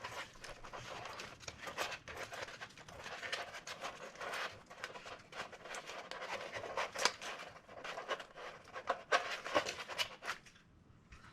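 Adhesive tape being handled and pressed onto cardboard pieces: continuous rustling and crackling with sharp clicks, stopping shortly before the end.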